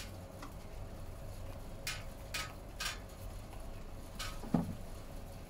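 A few soft, short crinkles from a small piece of synthetic fabric being handled and turned over a candle flame, over a steady low hum. A brief low blip about four and a half seconds in is the loudest moment.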